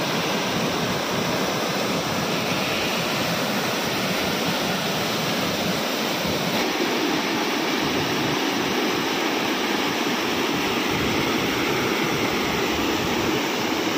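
A river rushing: a steady, unbroken sound of flowing water.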